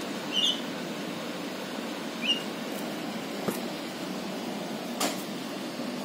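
Javan myna giving two short, high chirps about two seconds apart, over a steady background hiss. A sharp click and then a louder tap follow later.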